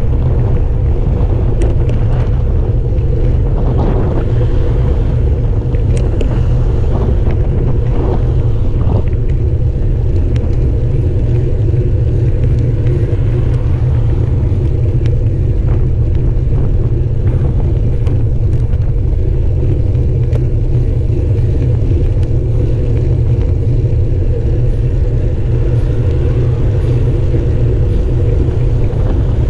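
Steady wind rumble and road vibration on the microphone of a camera carried on a moving road bicycle, with a few light clicks in the first third.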